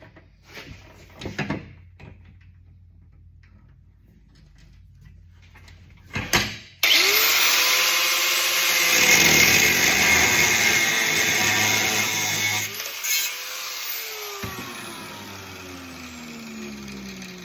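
A few light knocks and clicks, then about seven seconds in an electric grinder starts up and grinds a steel bolt down, loud and hissing. Near the end it is switched off and its motor winds down with a falling whine.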